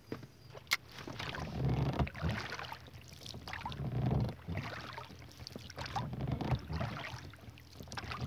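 Oars rowing a small boat: a stroke about every two seconds, each with water swishing and a knock from the oars.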